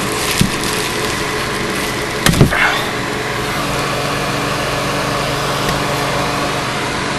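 Plastic packaging and bubble wrap crackling as parts are handled, over a steady hiss, with a cluster of sharp knocks and a scrape about two and a half seconds in.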